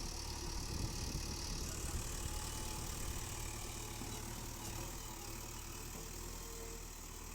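JCB 3DX backhoe loader's diesel engine running steadily with a low rumble.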